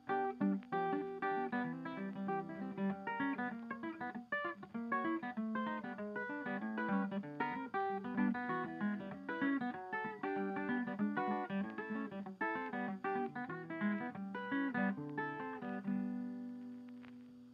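Background music on acoustic guitar, quick plucked notes, fading out near the end.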